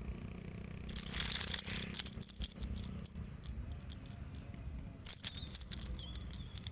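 Fishing reel being wound in on a hooked fish, just after the strike: a run of small mechanical clicks over a low rumble, with bursts of hiss about a second in and again about five seconds in.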